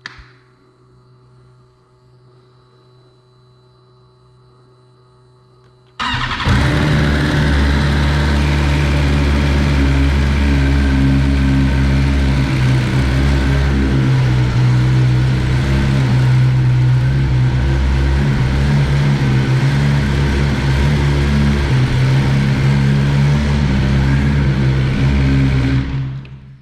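2022 BMW S1000RR's inline-four engine comes in suddenly about six seconds in and runs loud and steady for about twenty seconds, then stops near the end. Before it, only a faint steady hum.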